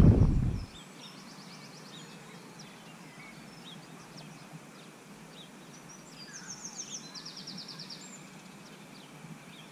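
Birds chirping outdoors, with two short rapid trills, over a faint steady background hiss. A loud low rumble at the very start cuts off abruptly under a second in.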